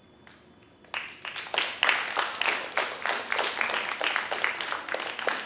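Small audience applauding, the clapping starting suddenly about a second in and continuing.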